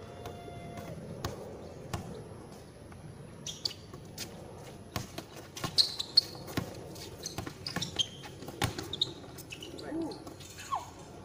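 Basketball bouncing on a concrete court during a game, with irregular thumps.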